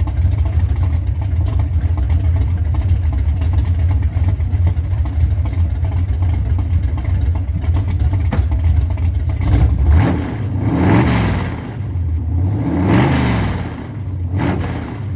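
1970 Chevelle's 383 stroker small-block V8 running through open long-tube headers: a loud, steady idle for about ten seconds, then the throttle is blipped, with two revs rising and falling and a smaller third one near the end.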